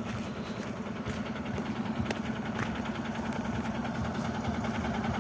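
Truck engine running steadily with a rapid, even firing beat, growing slightly louder.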